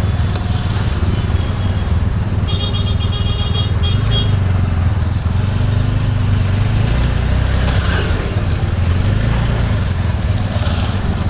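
Steady low rumble of a road vehicle's engine, with a high-pitched horn sounding for about two seconds from about two and a half seconds in.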